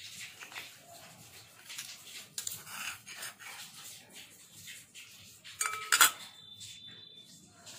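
Metal dishes and utensils clinking and scraping against each other. About six seconds in there is one sharp clang, and the dish rings on briefly after it.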